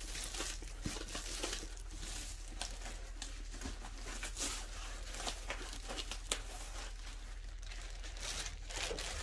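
Paper and plastic packaging crinkling and rustling as a rolled diamond-painting canvas is handled and laid on a table, with many small crackles throughout.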